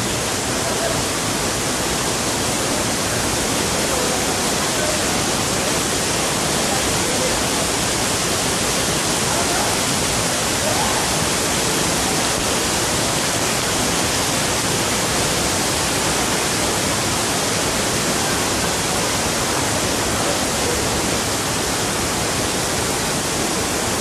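A waterfall's steady rush of falling water: an even, loud hiss and rumble that does not change.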